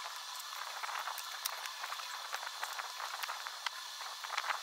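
Small plastic building bricks being handled and fitted together: scattered light clicks and rattles over a faint steady hiss.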